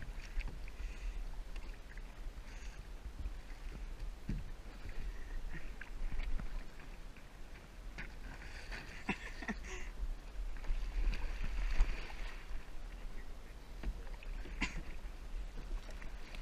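Kayak paddling on calm water: paddle blades dipping and splashing, with water lapping and dripping around a sit-on-top kayak, over a steady low rumble.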